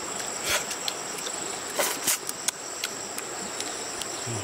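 A steady high-pitched insect drone, such as cicadas or crickets, with scattered small clicks and a couple of louder rustles about half a second and two seconds in.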